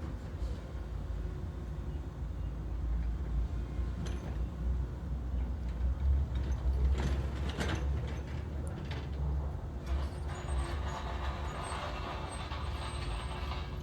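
Backhoe loader's diesel engine running with a steady low rumble, with a few mechanical clanks and creaks and a stretch of hiss near the end.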